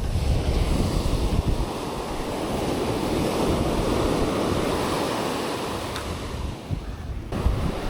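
Ocean surf washing up the beach, swelling to a peak about halfway through, with wind buffeting the microphone.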